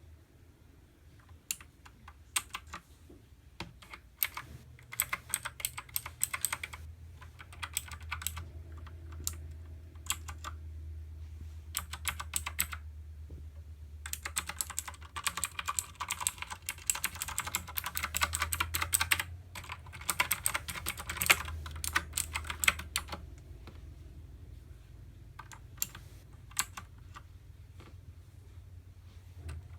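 Typing on a Xenics Titan Mark 7 mechanical keyboard with clicky blue switches, in bursts of fast keystrokes with short pauses between them. The typing is thickest in the middle stretch and sparser near the start and end, over a faint low hum.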